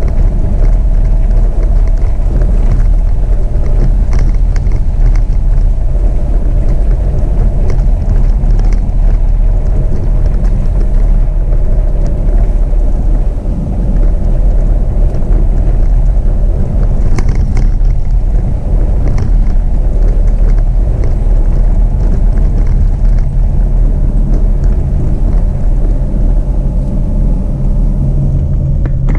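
Jeep Renegade driving along at a steady pace. It makes a loud, continuous low rumble of engine and tyres under a steady hum, with occasional small ticks and rattles.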